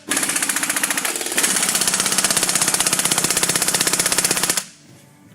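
Impact wrench hammering on a seized lug nut that will not break loose: a rapid, steady rattle of blows that grows louder about a second and a half in, then stops abruptly near the end.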